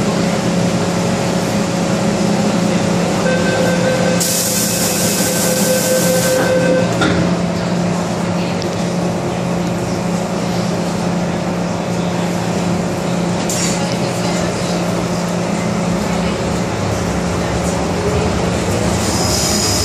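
Inside an MTR M-Train car. The train's equipment hums steadily throughout. About three to seven seconds in, the door-closing warning tone sounds, with a loud hiss of air for a few seconds as the doors shut. Near the end the train pulls away, its electric traction motors rising in a whine.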